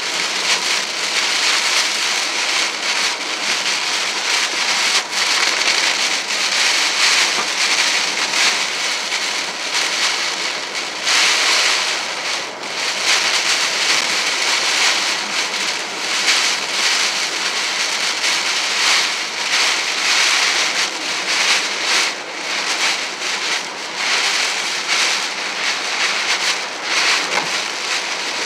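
Heavy rain beating steadily on a car's roof and windshield, heard from inside the moving car, with wind and road noise mixed in.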